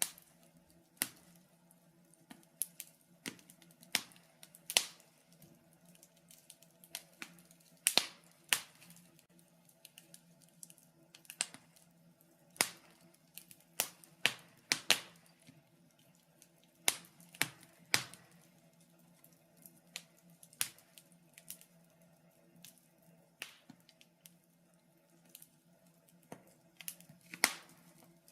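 Wood fire crackling in a fireplace: irregular sharp pops and snaps, sometimes several in quick succession, over a faint steady low hum.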